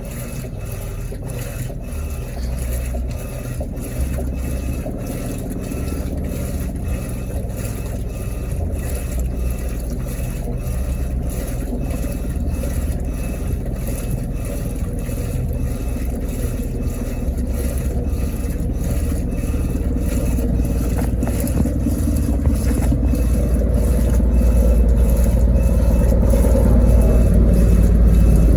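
Electrolux LTE12 top-loading washing machine running just after being switched on, a steady low rumble that grows gradually louder.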